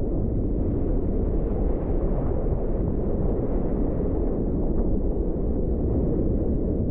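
Steady, muffled rumble of wind and water buffeting a GoPro's microphone at sea, with no tone or rhythm in it.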